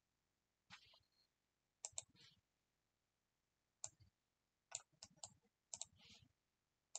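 Faint, scattered clicks of a computer mouse and keyboard, about a dozen, some in quick pairs.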